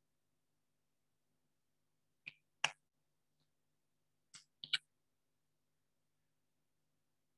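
Sharp plastic clicks of whiteboard marker caps being pulled off and snapped on: two clicks a little past two seconds in, then three quick clicks about two seconds later.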